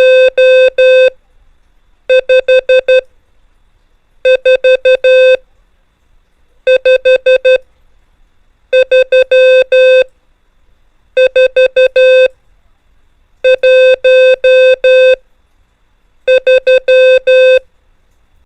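Morse code (CW) practice tone sending the numerals 1 to 5: a steady beep near 500 Hz keyed on and off, each numeral a group of five dots and dashes, with a new group about every two seconds.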